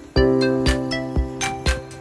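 Background music: held synth chords over a steady beat of about two strikes a second, with a new chord coming in just after the start.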